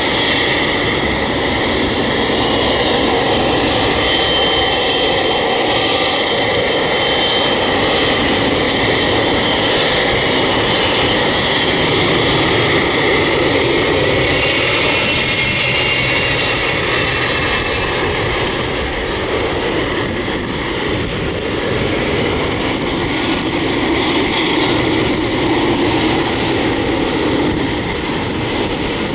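Boeing 777-300ER's GE90-115B turbofan engines running at taxi power as the jet taxis: a loud, steady jet rumble with a high thin whine on top.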